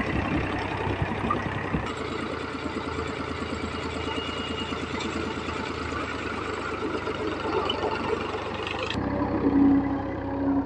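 Powertrac 435 tractor's three-cylinder diesel engine running steadily, with a rapid even firing pulse. About nine seconds in the sound changes abruptly to a quieter engine note with a steady hum.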